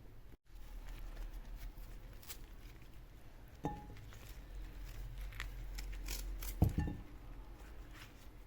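Kitchen handling sounds: scattered light taps and clinks, a knock about three and a half seconds in and a louder knock about six and a half seconds in, over a low steady hum.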